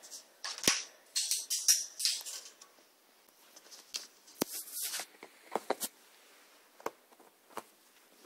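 A small hard pet toy rattling and clicking on a tile floor in uneven bursts, loudest in the first couple of seconds and again around four to five seconds in, then a few single clicks.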